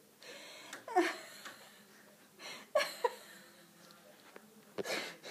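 A person laughing softly off camera: breathy giggles in three short bursts, about a second in, around three seconds and near the end.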